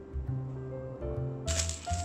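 Background music of held, piano-like notes. About one and a half seconds in, baking paper rustles and crinkles as the baked loaf is lifted out of its tin.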